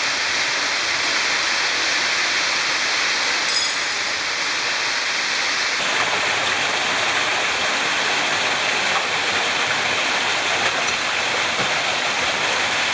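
Steady rush of a small waterfall pouring into a rock pool. Its tone shifts slightly about six seconds in.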